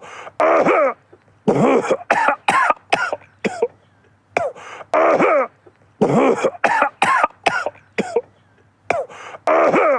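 A man's coughing fit: two longer, throaty coughs followed by a quick run of four or five short, sharp coughs. The same group of coughs repeats about every four and a half seconds, like a loop.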